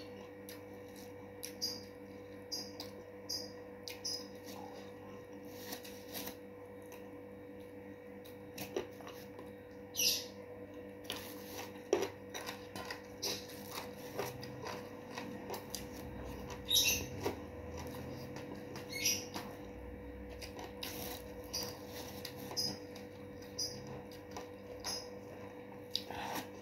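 Close-up eating sounds: chewing and wet mouth smacks with many short clicks, as rice and fried salted fish are eaten by hand from a steel plate, over a steady faint hum.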